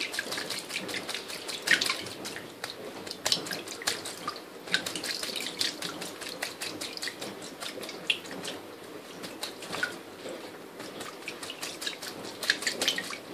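A kakariki bathing in shallow water in a stainless steel sink, flapping and fluttering its wings. It makes flurries of splashing with droplets spattering against the metal, with short lulls between the flurries.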